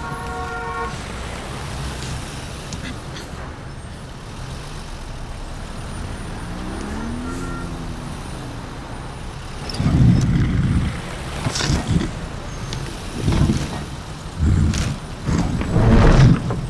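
Gridlocked cars with their engines running as a steady rumble, a car horn honking at the start and another short honk in the middle. In the second half engines surge loudly several times, each for about a second.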